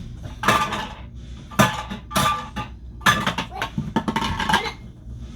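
Kitchenware clattering and clinking: about six knocks of pans, dishes or utensils being handled, each with a short ring.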